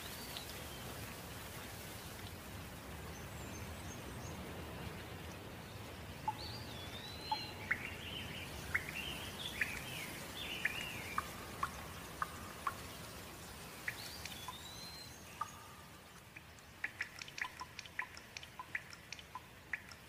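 Steady rain falling, with birds chirping in short rising and falling calls over it through the middle. Near the end the rain noise thins and a quick run of short, sharp ticks of dripping water comes through.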